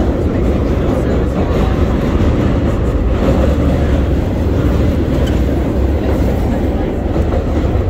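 Vintage R33/R36 subway train running, heard from inside the car: a loud, steady rumble of wheels on rail and running gear.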